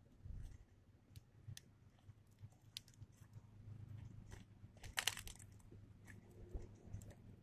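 Faint, scattered clicks and crackles over a low hum, with a short burst of crackling about five seconds in.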